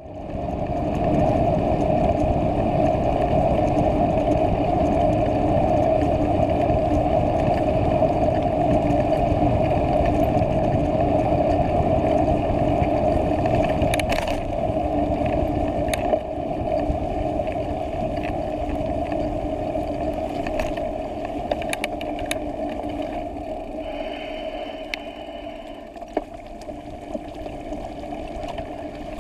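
Bicycle riding on a paved path, heard through a handlebar-mounted camera: steady wind rush and rumble on the microphone with a constant hum of tyres on tarmac, and a few sharp clicks and knocks from bumps. The rumble eases somewhat in the last few seconds.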